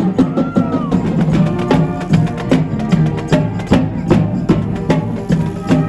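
A live band of brass and drums playing, with a steady drumbeat under held brass notes.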